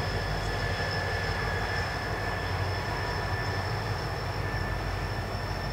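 EMD GP30 diesel locomotive running with a steady low rumble as it moves slowly past its standing passenger cars to run around the train.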